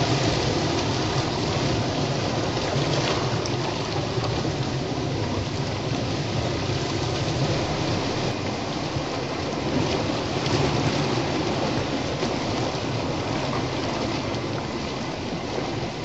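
Sea waves washing in and breaking among shoreline rocks: a continuous rushing surf, with louder surges near the start and about ten seconds in.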